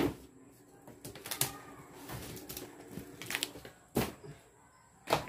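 Scattered knocks and clatters of things being handled and set down while a room is cleaned out: a loud knock at the start, then about four more, sharp and irregular, a second or so apart.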